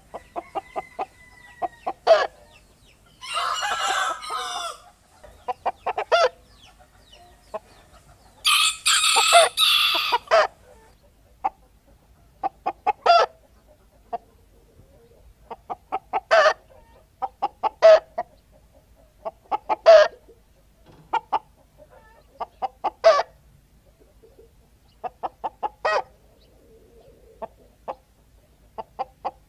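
Hens cackling: repeated runs of short clucks that build to a louder note. A rooster crows twice, a few seconds in and again around nine seconds.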